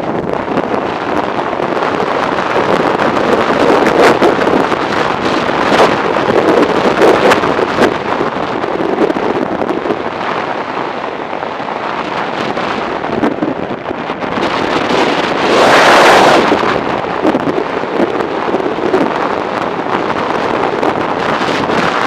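Wind rushing over the microphone of a camera on a motorcycle moving at road speed, a loud, even hiss that swells in a stronger gust about three-quarters of the way through.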